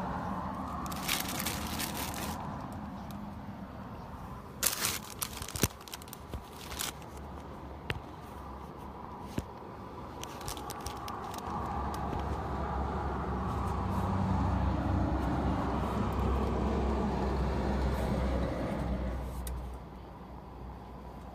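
Crinkling and tearing of a plastic food packet in two bouts, about a second in and about five seconds in. A vehicle engine's low rumble then swells from about twelve seconds and fades out near the end.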